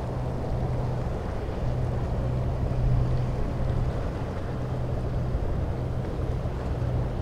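Wind rushing over the microphone with a steady low hum underneath from a cruise ship under way; the hum swells and fades a few times.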